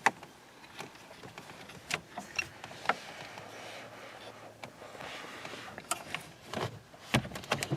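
Scattered light plastic clicks and knocks as a wiring connector is pried loose with a flathead screwdriver and pulled from the back of a car stereo.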